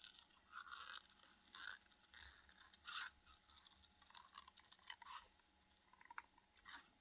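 Faint, irregular rustling and scraping of paper scraps and cutouts being handled on a work surface.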